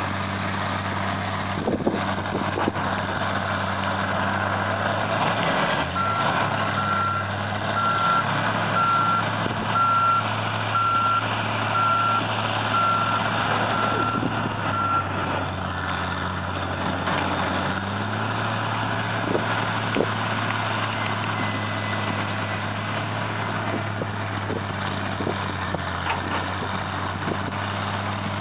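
Heavy diesel demolition machinery, excavators and a crawler loader, running steadily, with a reversing alarm beeping about once a second for around nine seconds starting some six seconds in. A few knocks of concrete rubble being handled.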